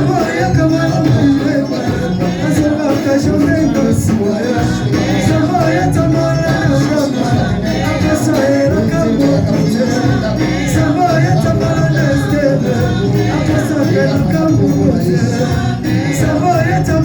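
Church worship music: singing over a band with shaken percussion, loud and steady.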